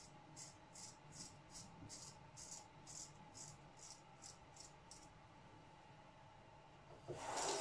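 A straight razor scraping stubble on a lathered face in short, quick strokes, about two to three a second, faint and stopping about five seconds in. Near the end a tap starts running.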